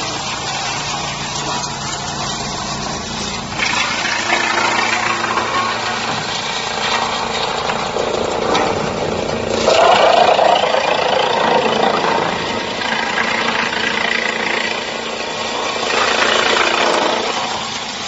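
High-capacity drum wood chipper running and chipping wood waste: a steady mechanical din that swells louder in surges about 4, 10 and 16 seconds in.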